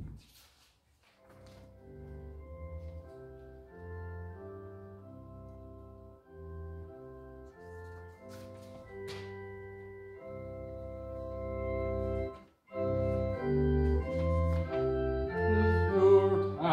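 Organ playing a slow hymn introduction in held chords, starting about a second in, with one short break about three-quarters through before it comes back louder.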